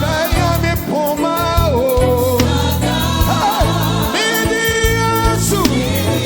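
Gospel praise music: singing voices, with a choir, over a steady, pulsing bass line.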